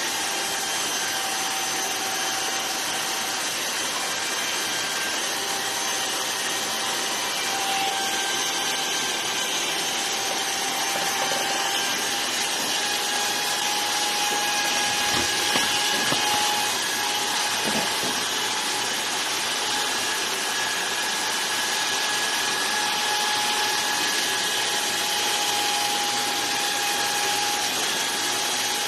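Electric hair clipper running steadily through a head shave, a continuous motor buzz with a steady high whine.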